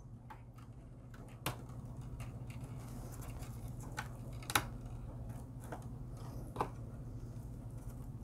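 Light clicks and small scrapes of HO-scale model track being handled: a Walthers curved turnout worked into place and its metal rail joiners fitted onto the rails. Scattered sharp clicks, the clearest about four and a half seconds in, over a low steady hum.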